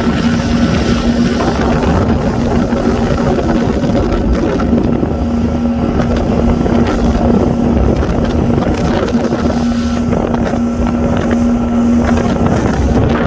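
Speedboat engine running steadily at speed while towing, with a constant hum, water rush and wind buffeting the microphone.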